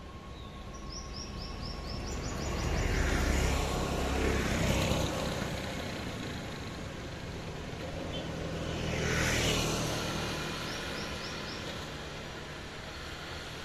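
Road traffic going by: a vehicle passes close about three to five seconds in and another about nine seconds in, each a rumble with tyre hiss that swells and fades. Short runs of bird chirps sound early on and again near the end.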